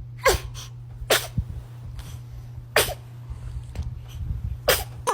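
A baby sneezing four times: short, sharp sneezes one to two seconds apart.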